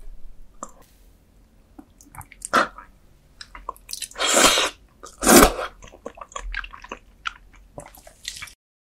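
Close-miked eating of soft roasted beef bone marrow: wet, squishy chewing and mouth clicks, with two louder, longer wet sounds about four and five seconds in. The sound stops abruptly just before the end.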